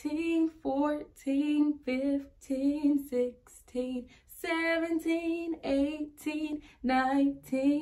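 A woman singing a counting song, one short held note after another.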